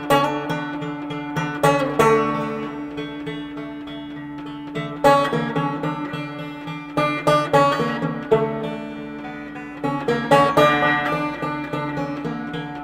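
Background music: plucked string notes struck in quick phrases over a steady held low note.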